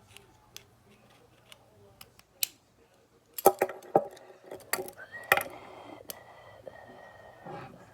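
Metal clicks and rattles of a key working a police handcuff lock to release the cuff: scattered sharp clicks, with a quick cluster about halfway through.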